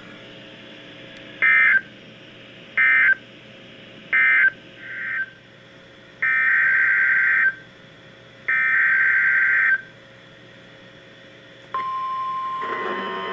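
NOAA Weather Radio alert data bursts: three short screeching bursts about a second apart, marking the end of one message, then two longer bursts of the next message's header. Near the end the steady single-pitch weather-radio alert tone starts.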